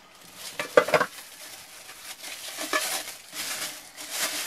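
Camping cook-set pans being handled: a metal clatter as pans knock together about a second in, then the plastic wrapping around them rustling and crinkling as a pan is lifted off the stack.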